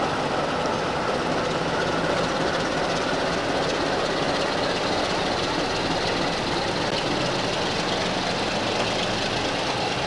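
Diesel locomotive engine running steadily under load as it pulls a passenger train away.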